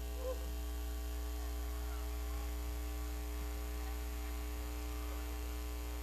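Steady electrical mains hum with a stack of even overtones, holding level throughout, with faint scattered voices underneath.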